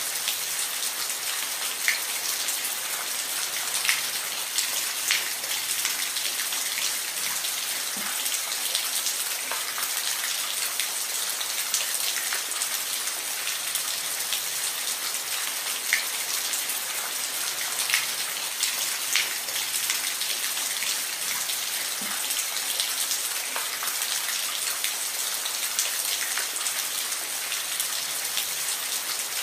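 Steady rain falling, a dense even hiss with scattered louder drops striking a surface every second or so.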